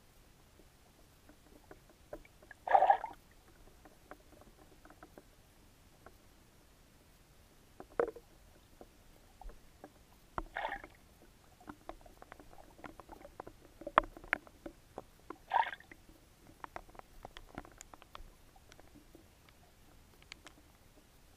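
Particle groundbait (corn, hemp and wheat grains) landing in a lake, heard underwater through a camera's housing: three short, muffled splashes several seconds apart, with many small clicks and ticks in between.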